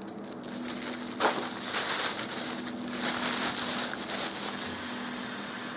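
A large clear plastic oven roasting bag crinkling and rustling as it is handled, starting with a sharp crackle about a second in, over a steady hum.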